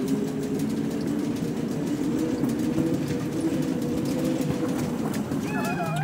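Plastic car-shaped shopping cart rolling fast over a smooth store floor: a steady rumbling hum from its wheels with faint regular clicks. Near the end a brief high wavering tone cuts in.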